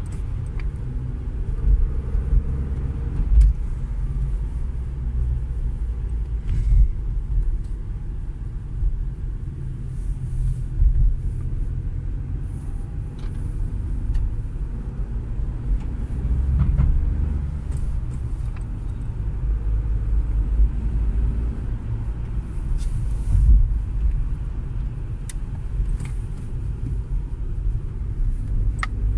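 Road and engine noise inside the cabin of a moving Dacia Logan: a steady low rumble, with a few brief knocks along the way.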